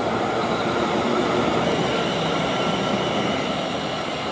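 A twelve-car South Western Railway Class 450 Desiro electric multiple unit pulling away and running past. It makes a steady rumble of wheels on rail with a faint electric whine, easing slightly near the end as the rear of the train goes by.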